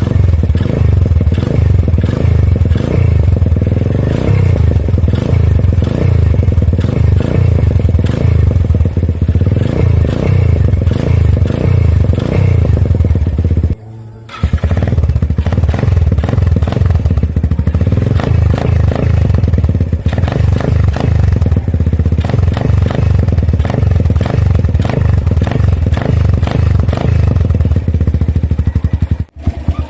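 Suzuki Thunder 125's single-cylinder four-stroke engine running loud through an Apido aftermarket exhaust with its silencer insert removed, leaving only the muffler and tip: a bassy exhaust note with a little crackle. The sound breaks off briefly about halfway, then resumes.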